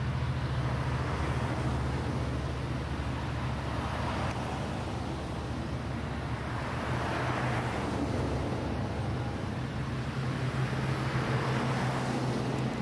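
Cars swishing past on a road every few seconds, over a steady low diesel drone from a Coaster commuter train's locomotive rolling by.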